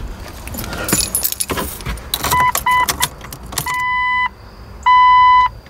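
Keys jangling at the ignition of a 1999 Jeep Cherokee. The dashboard warning chime then sounds as the key is turned on: three short beeps, then two longer tones of the same pitch.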